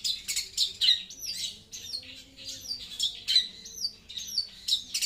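Long-tailed shrike (cendet) singing loud and clear: a rapid, unbroken run of short, sharp chirps and downward-hooked notes, several a second.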